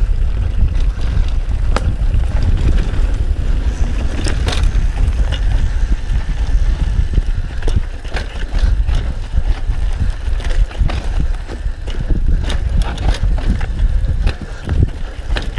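Mountain bike descending a dry dirt trail at speed: a heavy low rumble of wind on the microphone and tyres on dirt, with frequent sharp clicks and rattles from the bike jolting over bumps.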